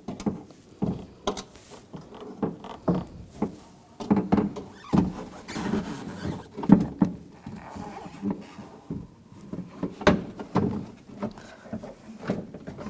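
A car door panel being handled and lined up on the door frame: irregular knocks, thuds and light rattles of panel against door.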